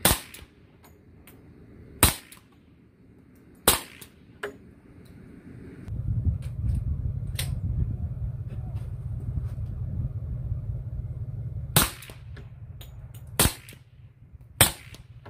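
Glock 20 10mm pistol with a SilencerCo Hybrid 46 suppressor firing subsonic HSM 200-grain full metal jacket rounds: six muffled shots, three in the first four seconds and three more near the end, without the crack of the sound barrier.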